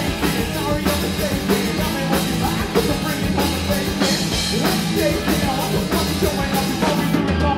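Live rock band playing loud and steady, with electric guitars through amplifiers and a drum kit.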